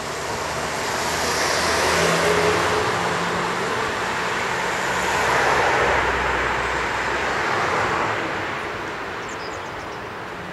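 Motor vehicles passing close by on a road: engine and tyre noise swells up about two seconds in and again around six seconds, then fades away.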